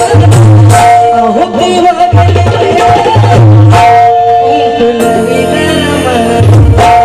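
Loud music in the style of a Marathi devotional Bhim geet, with a pulsing low drum beat under held notes and a melody. About five seconds in the beat drops out, leaving sustained chords, and it comes back just before the end.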